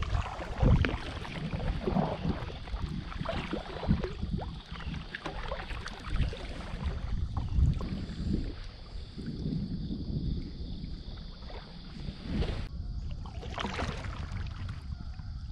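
Feelfree Lure 10 fishing kayak being paddled: water splashing off the paddle blades, with irregular knocks of the paddle against the plastic hull.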